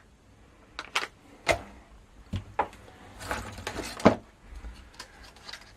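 Small hardware parts and packaging being handled and rummaged through in a box: about six separate sharp clicks and knocks, with a short rustle about three seconds in.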